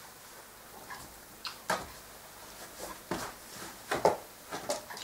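A Dalmatian puppy's claws clicking and tapping on a laminate wood floor as it walks about: scattered short, irregular taps, the loudest about four seconds in.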